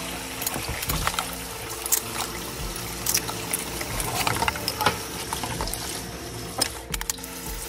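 Kitchen tap running into a stainless-steel sink while a sponge scrubs a frying pan, with scattered clinks and knocks of dishes being handled.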